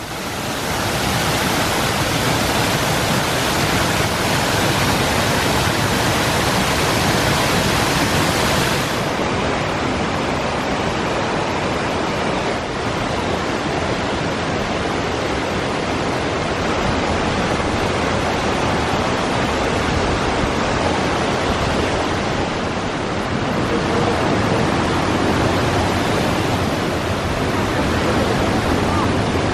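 Steady rush of falling water from a waterfall cascading over a dam wall. The hiss turns slightly duller about nine seconds in, and the sound shifts again a little after twenty seconds.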